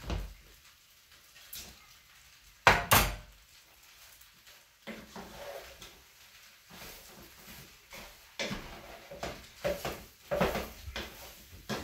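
Wooden spoon knocking and scraping against a pan while spaghetti is tossed and stirred, with two sharp loud knocks about three seconds in and clusters of knocks near the end.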